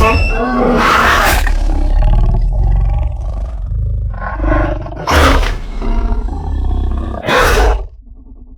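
Mutadon creature sound effect: a run of about five loud, harsh roaring cries over a continuous low rumble, dying away about eight seconds in.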